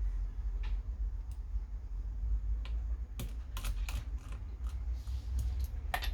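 Scattered light clicks and taps from handling a laptop and its parts, irregular and denser in the second half, over a steady low hum.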